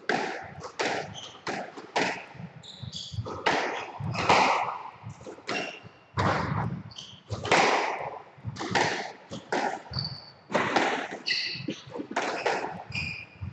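A squash rally: the ball is smacked by rackets and cracks off the court walls in a quick, uneven run of sharp hits, with short high squeaks of shoes on the wooden floor.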